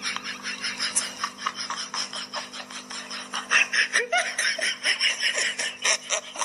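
Laughter in quick repeated bursts, with a small child's voice rising briefly about two-thirds of the way through.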